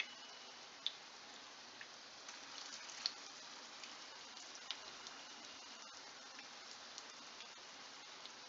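Potato patties (aloo tikki) shallow-frying in oil in a non-stick frying pan: a steady, faint sizzle with scattered small pops and crackles.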